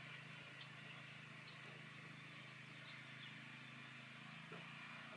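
Near silence: faint outdoor background with a steady low hum and no distinct event.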